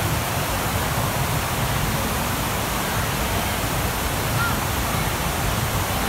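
Steady rush of water pumped across a sheet-wave surf simulator, loud and even throughout.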